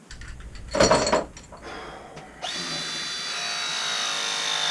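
A clunk about a second in, then a battery press-fitting tool's motor starts about halfway through and runs steadily, crimping a copper press fitting; its whine sinks slightly in pitch as it goes.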